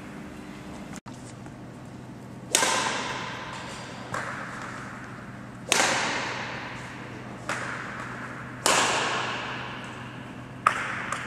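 Badminton rackets striking a shuttlecock in a rally: about six sharp hits, roughly every one and a half to two seconds and alternately louder and softer, each ringing on in the echo of a large sports hall.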